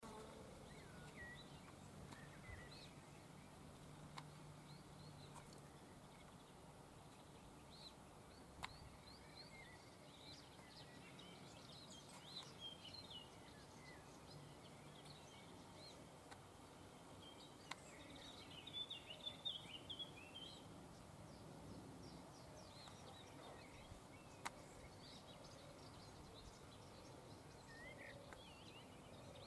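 Faint outdoor ambience with small birds chirping and twittering in the background, busiest in two spells. There are a few sharp clicks, and a low hum in the first few seconds.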